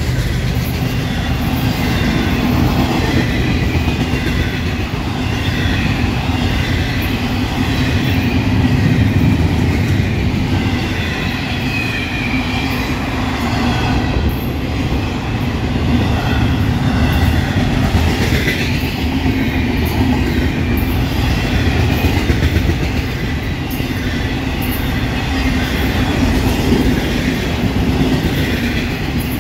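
Florida East Coast Railway intermodal freight cars rolling past at close range: a steady, loud rumble of steel wheels on rail with rhythmic clickety-clack over the rail joints, and a faint, thin wheel squeal coming and going.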